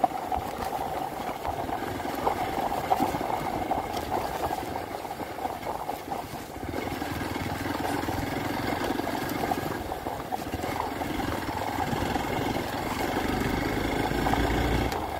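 Hero Xpulse 200 4V's single-cylinder engine running steadily as the motorcycle is ridden along a dirt track, with many small clicks and rattles over the rough surface. A low rumble builds near the end.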